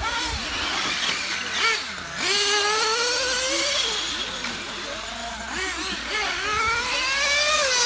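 1/8-scale electric GT radio-controlled cars with brushless 6S motors racing round a paved track, their motor whine climbing and dropping in pitch with the throttle. It gets louder about two seconds in and rises again near the end as a car accelerates.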